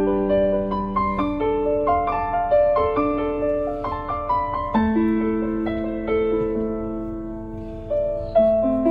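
Slow solo piano music, single notes and chords struck and left to ring out and fade. It grows quieter toward the end, then a stronger chord enters shortly before the end.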